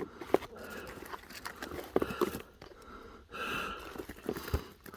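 Handling of the crashed drone's broken parts: scattered sharp clicks and knocks with brief rustling between.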